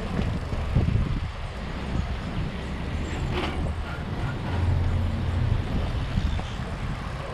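Freeway traffic noise: motor vehicle engines running over road noise, with a steadier low engine hum for about a second midway through.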